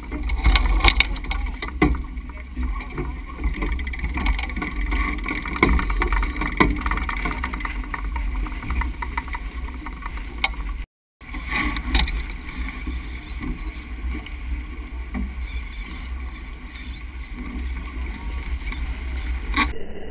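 Wind buffeting the microphone on a sailboat heeled hard over, with water rushing past the rail and scattered knocks and clunks on deck. The sound cuts out for a moment about halfway through.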